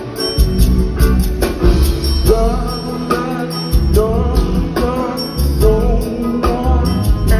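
Live R&B band playing on stage: bass and drums under a lead melody line that slides up and down from about two seconds in.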